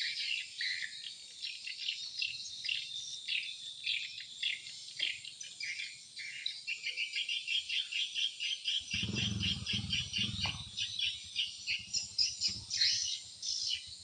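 Swiftlets chirping around a swiftlet house: a dense, rapid run of short high chirps. A brief low rumble comes in a little past the middle.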